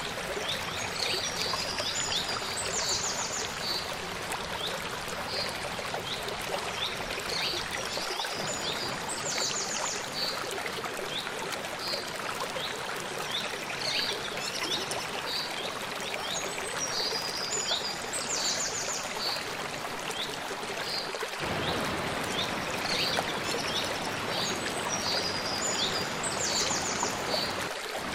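Steady rushing of a small stream running over rocks, with a bird singing short high phrases that repeat every several seconds.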